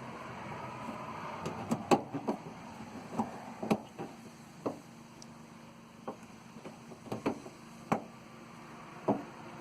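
About ten irregular light clicks and knocks of exterior door handle and lock parts being handled and fitted inside a car door.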